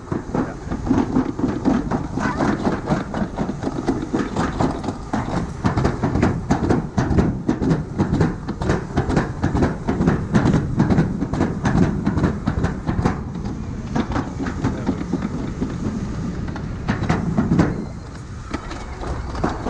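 Amusement park ride cars clattering and rattling along a track, with a steady low rumble under many quick knocks, easing off a little near the end.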